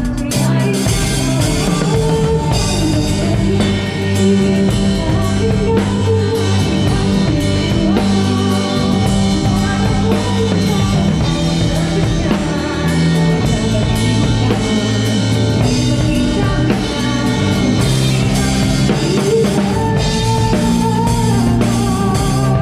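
Live band playing a song at full level: drum kit, guitar and bass, with singing over it.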